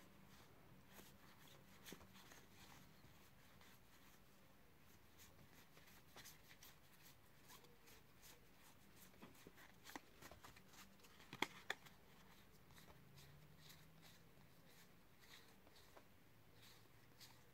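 Near silence broken by faint clicks of Dinosaur King trading cards being thumbed through in the hands, with two sharper clicks about eleven seconds in.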